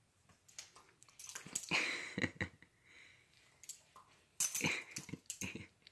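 Dog snapping its jaws at a beetle and biting air, in two short bursts of sharp snaps and breathy noise: one about a second in and a louder one about four and a half seconds in.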